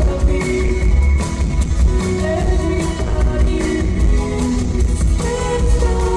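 Live band playing a song on drum kit, bass guitar, acoustic guitar and keyboard, with a steady drum beat, heard from within the audience.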